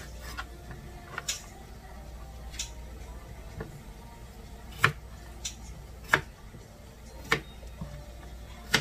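Kitchen knife chopping through a cucumber onto a plastic cutting board: sharp knocks of the blade hitting the board, about one a second, some louder than others.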